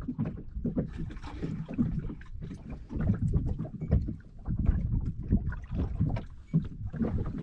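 Small waves slapping irregularly against the hull of a small fishing boat lying still on the water.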